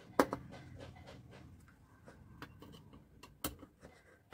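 Screwdriver tightening a small 2.5 mm screw into a metal cabinet panel: a faint scraping grind with scattered light ticks, and a sharper click near the start and another about three and a half seconds in.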